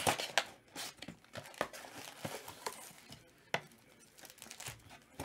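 A 2021-22 Select NBA hobby box being opened by hand: cardboard and foil-wrapped card packs rustling and crinkling, with a few sharp snaps and taps scattered through.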